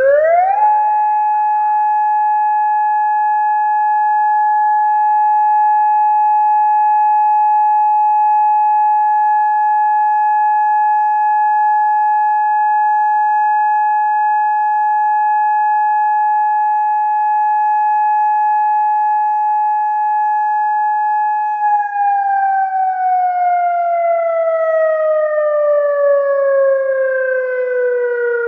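Outdoor voice siren sounding its test tone loud: the pitch rises quickly to a high steady note, holds it for about twenty seconds, then slowly falls, like a siren winding down.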